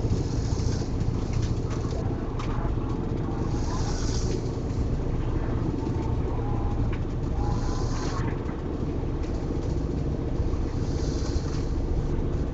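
A person snoring, one breath about every three and a half seconds, over the steady drone of an engine.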